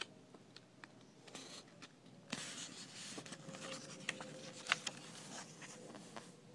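Quiet paper rustling as the pages of a cookbook are leafed through: a few soft ticks at first, then about two seconds in steady rustling with a couple of sharp page flicks.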